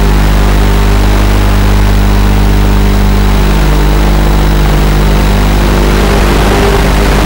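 Quadcopter's electric motors and propellers running steadily in flight, a loud hum of several steady tones with a noisy haze over it, picked up by the camera riding on the quadcopter.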